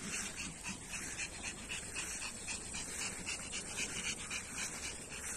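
Pomeranian dogs panting in quick, even puffs, about four or five a second.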